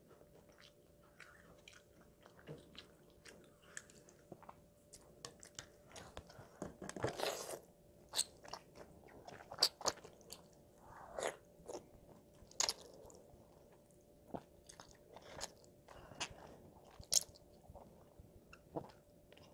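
Close-miked chewing and wet mouth smacks of a child eating jjajangmyeon (black bean sauce noodles), a string of short sharp clicks with a louder, longer noise about seven seconds in.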